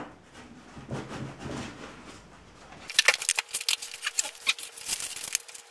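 Packing material being handled and pulled out of a 3D printer: faint rustling at first, then from about halfway a quick irregular run of sharp crinkling clicks and crackles.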